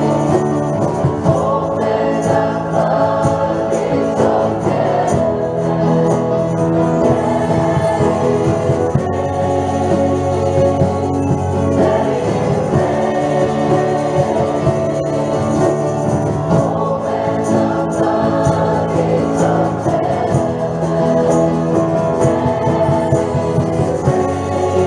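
A mixed church choir singing a gospel worship song with instrumental accompaniment.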